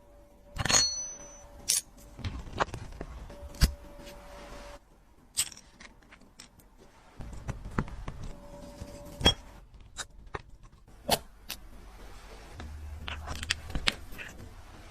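Small metal tools and watch parts handled at a workbench: irregular sharp clicks and light taps, metal on metal, with brief scraping between them.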